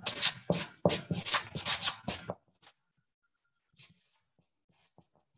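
Rustling and scuffing on a clip-on lavalier microphone as the wearer moves about, a quick run of loud bursts for about two seconds, then a few faint knocks. The same microphone is later said to crackle because it rubs against his clothing.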